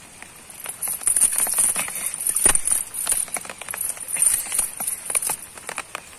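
Steel chain links clinking and rattling in the hand, with irregular sharp clicks and, from about a second in, a loud high jingling hiss, along with light splashing of muddy water.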